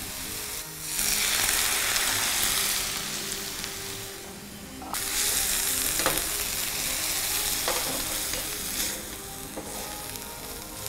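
A little water hitting a hot pan of fried onions and green chilli paste, sizzling hard while a spatula stirs and scrapes the pan. The sizzle surges about a second in, cuts off sharply near the middle, surges again and then dies down, with a few clicks of the spatula on the pan.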